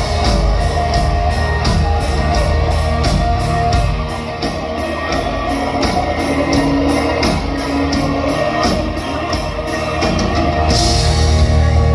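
Mongolian folk-metal band playing live: drums, guitars and a bowed horsehead fiddle (morin khuur), with a man singing into the microphone. The band eases off about four seconds in and comes back louder and fuller near the end.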